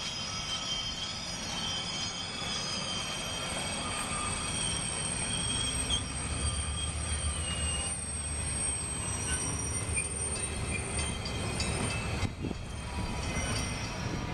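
Streamlined passenger cars of an excursion train rolling past close by, their steel wheels squealing in several steady high tones over a low rumble of wheels on rail.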